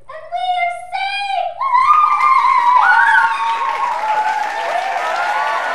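Several young girls' voices cheering together in drawn-out, overlapping shouts that grow into a loud, continuous jumble about two seconds in, with clapping mixed in.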